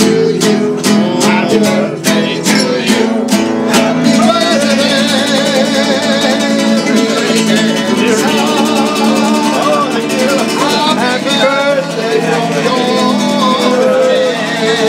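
Acoustic guitar strummed in a quick, even rhythm by a serenading guitarist. About four seconds in, a voice starts singing over it with a wavering vibrato.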